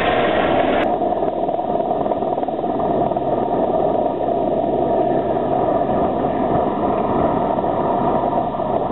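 Eurocopter AS350 AStar helicopter lifting off close by and climbing away: a steady turbine whine over rotor and downwash noise.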